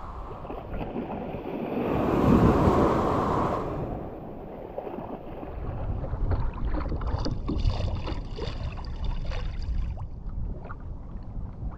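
Water splashing and lapping around a plastic Pelican sit-on-top kayak as it is paddled over choppy water, with wind on the microphone. A louder rush of noise comes about two seconds in, and short splashes and drips are scattered through the second half.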